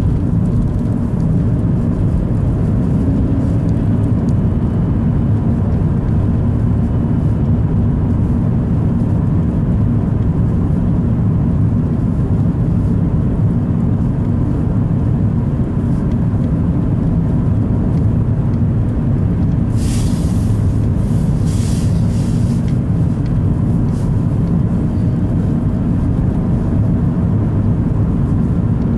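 Steady low drone of a car's engine and tyre noise heard from inside the cabin while driving on a snowy road. There are two short hisses about two-thirds of the way through.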